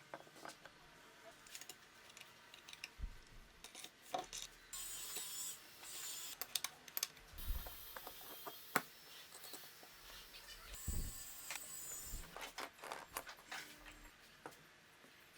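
Light handling of wood and tools: scattered clicks, taps and knocks, with two stretches of scraping or rustling, about five seconds in and again about eleven seconds in. No saw is running.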